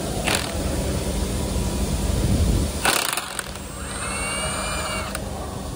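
Milwaukee Fuel brushless cordless impact wrench loosening a ball-joint fastener on the front suspension. It runs with a low rumble, then gives a sharp crack about three seconds in as the fastener breaks loose. Its motor then whines up and down for about a second and a half and cuts off suddenly.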